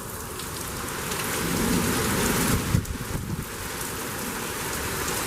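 Heavy wind-driven rain from a severe thunderstorm, a steady rush of noise that builds and swells loudest about two seconds in before easing slightly.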